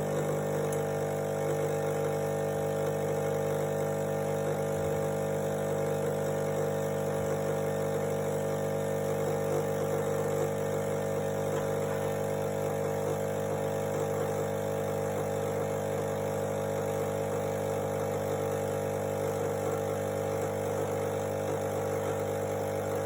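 Krups EA8178 bean-to-cup coffee machine brewing and dispensing an espresso shot, its pump giving a steady, even hum of several tones throughout.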